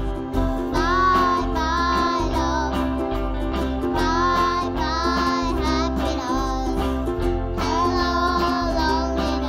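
A child singing into a microphone, accompanied by strummed ukulele and a Korg electronic keyboard, played live. The sung lines come in phrases with short breaks between them.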